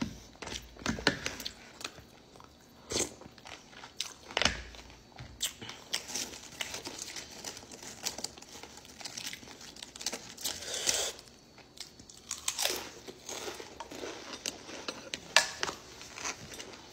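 Close eating sounds: a spoon clicking against a plastic tray, then crisp crunching bites into a raw cucumber and chewing, in scattered bursts with short pauses.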